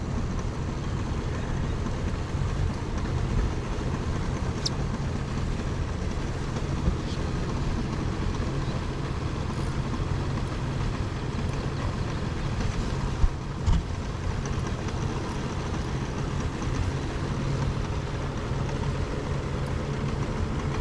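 Boat's outboard motor running steadily at low idle, with the rush of river current. Two short knocks come about two-thirds of the way through.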